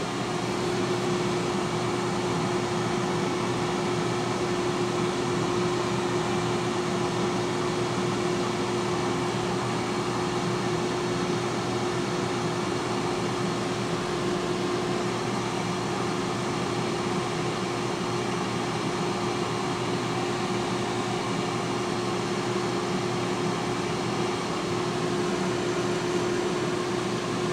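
T-fal digital air fryer running at 180 °C: its fan blows with a steady whooshing noise and a constant hum, unchanging as it cooks.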